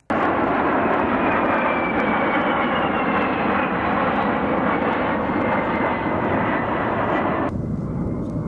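A-10 Thunderbolt II jet flying past, its twin TF34 turbofan engines giving a steady loud rush with a high whine that slowly falls in pitch. About seven and a half seconds in, the sound abruptly turns duller and slightly quieter.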